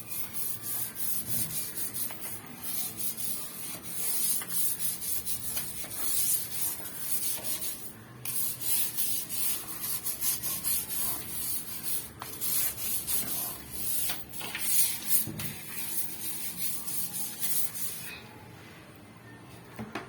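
Stiff brush scrubbing a wet floor with Lysol cleaner, in quick back-and-forth strokes. The scrubbing stops about two seconds before the end, and a single sharp knock comes at the very end.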